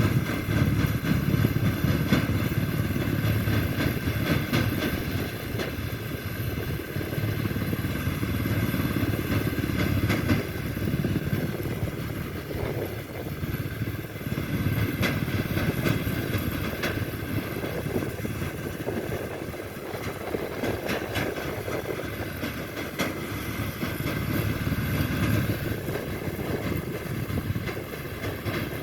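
Wheat-harvesting machinery running steadily: a low engine rumble with a steady mechanical whine above it and no letup.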